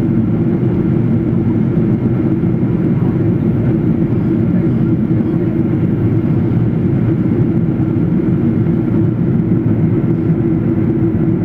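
Boeing 777 airliner in flight: steady, deep engine and airflow noise, even and unchanging throughout.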